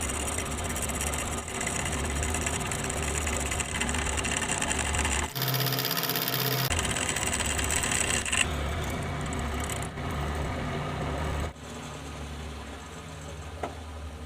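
Electric power tool running while working metal: a steady motor hum with a loud, gritty cutting noise on top. The sound changes abruptly about five seconds in, again about seven seconds in, and drops somewhat quieter near the end.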